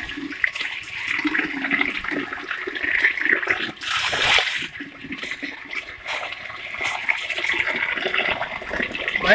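Water poured from a bucket onto a heap of live fish in a plastic sheet, splashing and sloshing unevenly, with a louder pour about four seconds in.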